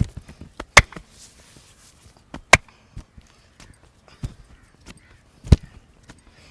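Sharp percussive strikes of a head-and-neck massage, about five of them a second or more apart, three much louder than the rest.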